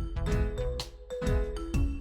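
Upbeat children's background music: a bright melody stepping from note to note over a steady beat.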